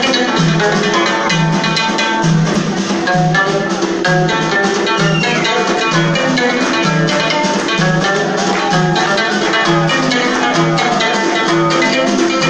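Live Amazigh folk music: a long-necked plucked lute plays over hand drums keeping a steady, even beat.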